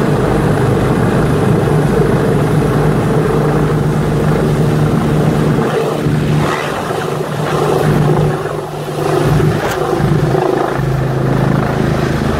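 Rescue helicopter hovering close overhead, its rotors and turbine engines running steadily, with a short dip in level about two thirds of the way through as it begins to bank away.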